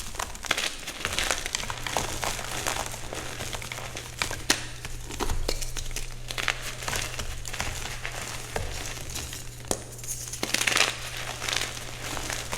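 Reformed gym chalk being crushed: a dense run of crisp crunches and crackles, with a louder burst of crunching near the end. A low steady hum sits underneath from about two seconds in.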